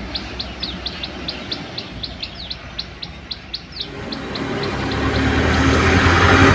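A bird chirping rapidly, about four short high chirps a second, over the low hum of a distant dump truck engine. About four seconds in, the chirps fade and a louder dump truck engine comes in and grows steadily.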